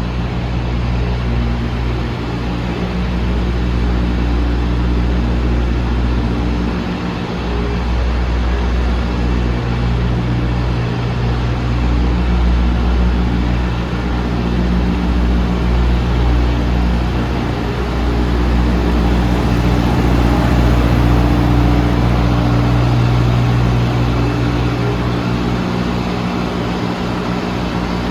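Turbocharged Euro 6 diesel engine of a DAF CF290 truck idling steadily, its note swelling slightly about two-thirds of the way through.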